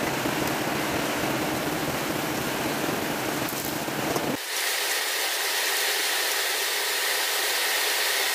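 Hot oil sizzling steadily as pork pieces deep-fry in a wok. About four seconds in the sound changes abruptly: the low rumble drops away, leaving a thinner hiss with a faint steady whistle.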